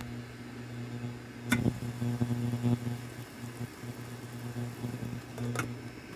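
A steady low electrical or motor hum, like a kitchen appliance running, broken by two sharp knocks, one about a second and a half in and one near the end; the hum cuts off at the very end.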